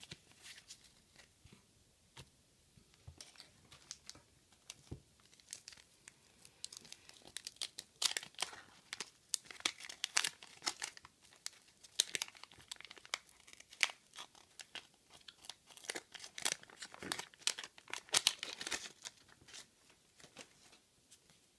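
Wax-paper wrapper of a 1985 Garbage Pail Kids sticker pack being peeled and torn open, crinkling in a dense run of sharp crackles through the middle.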